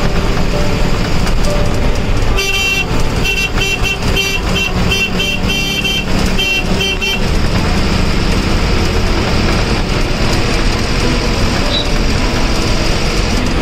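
Bus engine and road noise heard from inside the driver's cab while under way. Between about two and seven seconds in, a horn sounds one longer toot and then a quick string of short toots.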